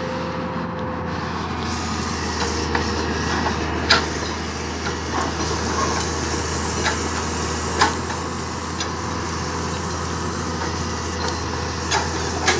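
Komatsu PC200-7 excavator's six-cylinder diesel engine running steadily as the machine tracks toward a truck's loading ramp, with a few sharp clanks about four seconds apart.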